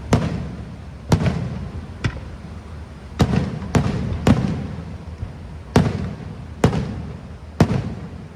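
Aerial fireworks shells bursting overhead: a string of sharp booms, roughly one a second, with a few coming closer together near the middle, each trailing off in a rumbling echo.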